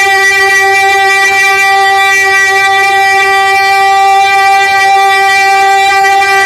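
A naat reciter holding one long, loud sung note at a steady pitch through a stage microphone and loudspeakers.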